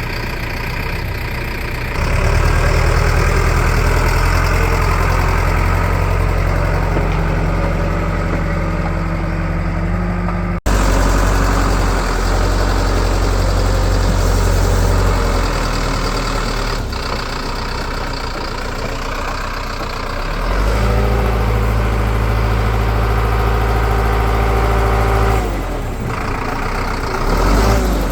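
A heavy diesel engine running, its note stepping up under load for stretches and settling back. There is an abrupt break about a third of the way through.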